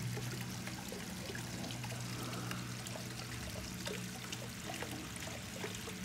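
Water trickling and splashing steadily as it spills over the stepped ledges of a weeping-wall fountain (muro llorón), with a faint low hum underneath.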